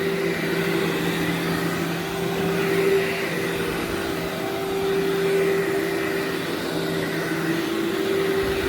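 Workhorse upright vacuum cleaner running steadily on berber carpet, a constant motor whine over the rush of suction air.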